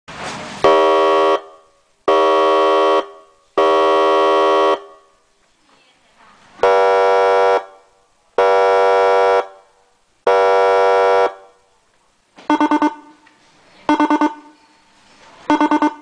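Emergency vehicle siren sounding a steady horn tone in separate blasts: three blasts of about a second each, then three at a lower pitch, then short groups of about four rapid pulses repeating roughly every second and a half from about twelve seconds in.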